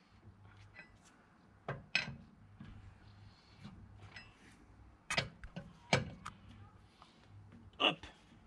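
A handful of short metallic clinks and knocks from a wrench and socket on car wheel bolts during tightening in a star pattern, spread out with quiet gaps between them.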